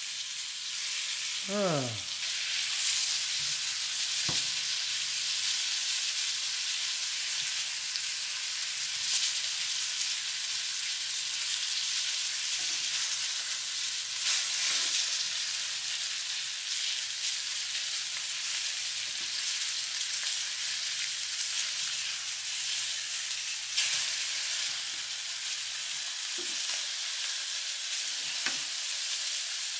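Egg-and-cornstarch-coated walleye fillets sizzling steadily in hot oil in a nonstick frying pan, with a few sharp clicks of metal tongs against the pan as the pieces are turned.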